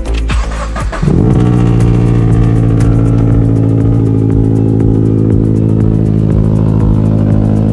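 Car engine running with a steady, held note after a quick rise in revs about a second in.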